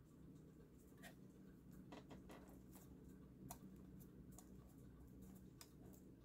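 Near silence with a few faint, scattered light clicks and taps: a clear embossing-ink dauber being handled, uncapped and dabbed onto a paper cut-out, over a low steady room hum.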